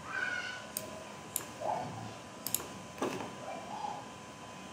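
A few sharp clicks at uneven intervals, over faint room sound with brief faint pitched sounds in the background.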